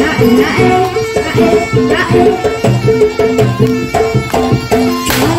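Live jaranan (kuda lumping) music: hand drums beating a quick, busy rhythm over a repeating pattern of pitched gong-chime notes, with a wavering melody line above.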